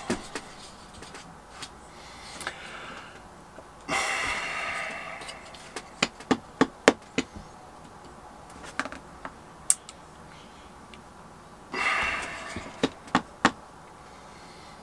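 Sharp clicks and light knocks: a quick run of about five about six seconds in, and three more near the end. Two short rustling hisses come between them.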